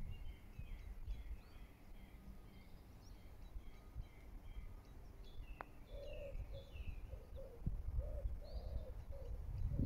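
Songbirds chirping and calling, with a low repeated cooing joining from about six seconds in, over a faint low rumble of wind. A single faint click about halfway through is the putter striking the ball.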